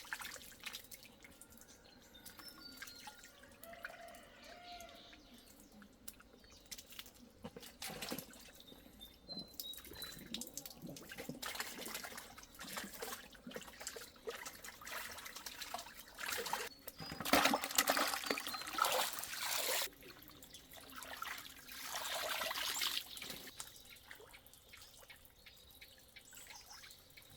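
Water trickling and splashing, with many irregular small knocks and clicks; the splashing grows louder for a few seconds about two-thirds of the way in.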